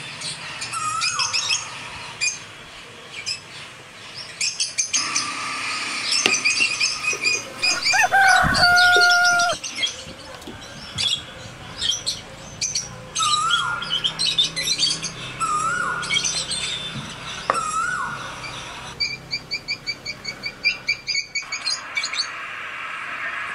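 Several birds chirping and calling, with a short swooping call repeated every couple of seconds, a louder held two-note call about a third of the way in, and a fast run of chirps near the end.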